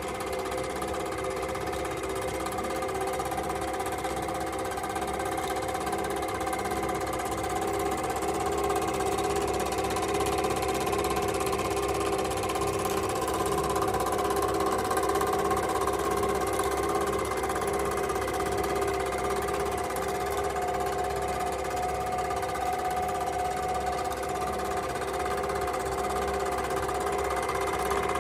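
S&B Kentmatic P-300 Super 8 film projector running: a steady motor and fan hum with the fast, even clatter of the film being pulled through the gate.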